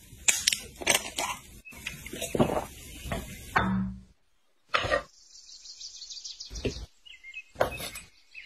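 Clicks and knocks of close-up handling: a glass bottle's cap twisted and the bottle set down, and cutlery tapping on a wooden cutting board, in short bursts broken by abrupt cuts to silence. In a gap partway through, a high chirring bird or insect call is heard briefly.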